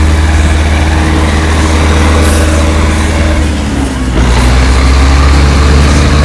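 Ursus C-360 tractor's four-cylinder diesel engine running hard, hauling a trailer loaded with logs through snow. It is a loud, steady drone, and its pitch sags about four seconds in.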